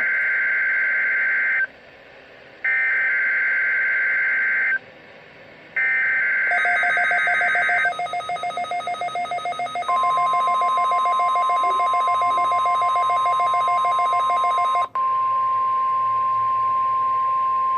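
NOAA Weather Radio SAME alert header played through a Midland WR-300 receiver: three screeching bursts of digital data, each about two seconds long, a second apart. Near the end of the third burst the receiver's own buzzy, pulsing alert beep starts. About ten seconds in, the steady 1050 Hz warning alarm tone begins, and the receiver's beeping cuts off abruptly near fifteen seconds while the alarm tone holds.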